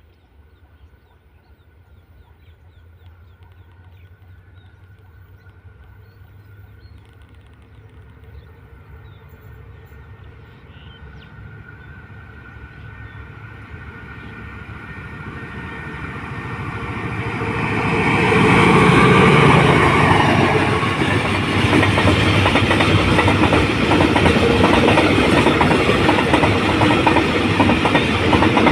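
Diesel-hauled container freight train approaching, growing steadily louder over about 18 seconds, then running close past with a loud rumble and wheels clattering on the rails.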